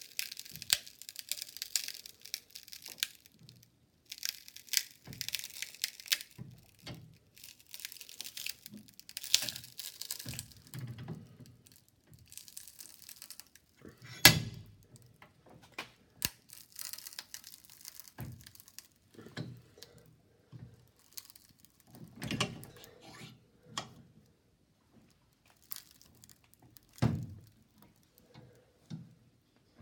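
Mobile phone being crushed in a press: its screen and casing crackle, crunch and snap in a run of sharp cracks and knocks, with one loud crack about 14 seconds in.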